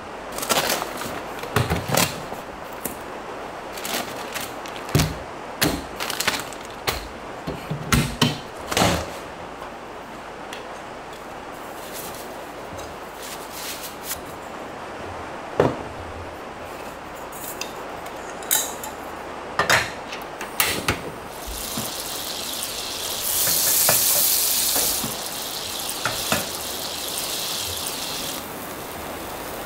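Metal camp cookware being handled: a stainless steel pot set and lid unpacked and a frying pan set on a portable stove, giving a run of separate clinks and knocks. Later a steady high hiss runs for about five seconds.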